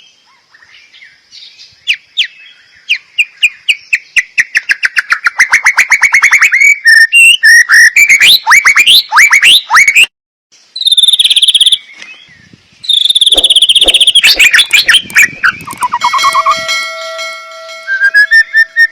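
White-rumped shama (murai batu) singing a long, loud, varied song: fast runs of repeated whistled notes, trills, quick rising sweeps and buzzy high phrases. It starts faint, builds within a couple of seconds, and breaks off briefly about ten seconds in.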